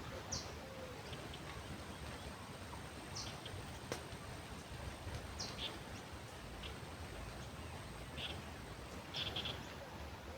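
Songbirds giving short, scattered chirps, about six in all, over a steady outdoor background hiss of wind or flowing river water.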